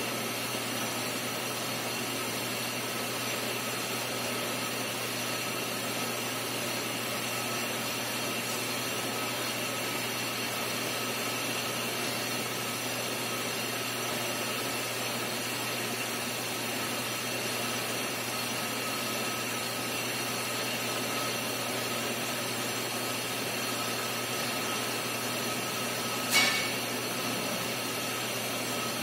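Brake lathe running steadily as it machines a brake drum: an even machine whine with a few held tones over a hiss. One sharp click near the end.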